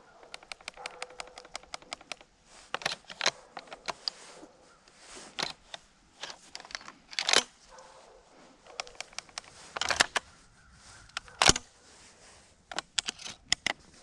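Clicks, taps and rattles of a camera mounted on a camouflage shotgun as the gun is carried, with footsteps in dry grass. There is a quick, even run of ticks in the first two seconds, scattered sharper knocks after that, and the sharpest knock comes about three-quarters of the way through.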